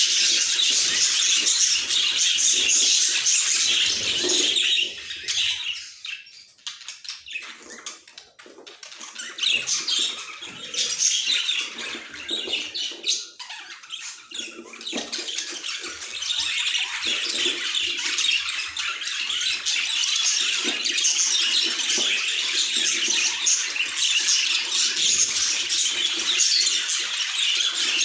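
Budgies chattering and chirping in a dense, continuous warble. The chatter thins to scattered chirps for several seconds in the first half, then fills back in.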